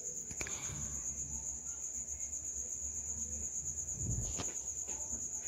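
A cricket trilling steadily at a high pitch, over the low rumble of potatoes boiling in a covered kadai on a gas stove.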